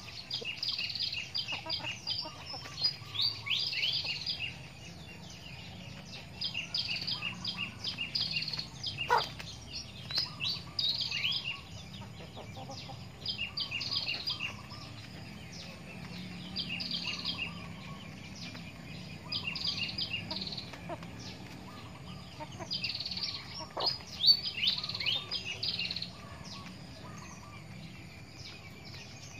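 Small birds chirping in repeated bouts of rapid, high-pitched notes every few seconds, over a low steady background hum. Two sharp clicks stand out, one about a third of the way in and a louder one past three-quarters.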